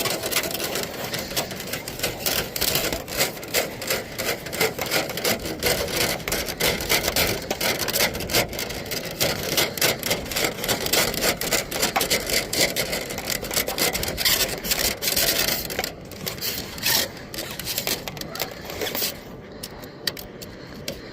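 Rapid scratching and rubbing, many small irregular clicks a second, thinning out about sixteen seconds in.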